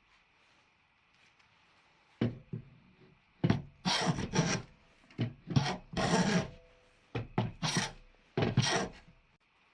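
About a dozen short strokes of a hand tool working on wood or steel, starting about two seconds in, in uneven groups.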